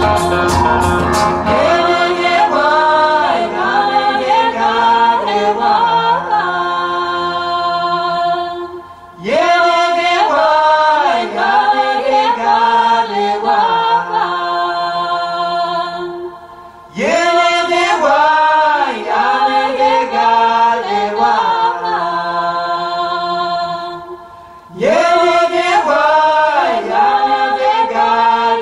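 Recorded vocal music played over a hi-fi system driven by a Mola Mola Kula switching integrated amplifier: layered voices singing in harmony, in phrases that start again about every eight seconds after a brief dip.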